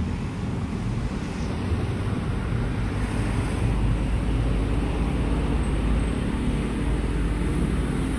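Steady low rumble of road traffic, swelling a little after the first second or two.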